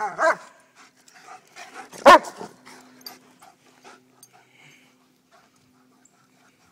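Two dogs at play, a white German Shepherd and a shepherd mix: two short barks right at the start and one loud bark about two seconds in, then faint panting.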